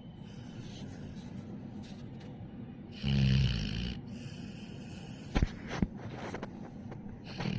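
Dog snoring: one loud snore about three seconds in, lasting about a second, and the next beginning near the end. Two sharp clicks come between them.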